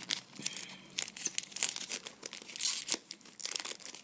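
A foil trading-card pack wrapper being torn open and crinkled by hand: irregular sharp crackles, densest about two and a half seconds in.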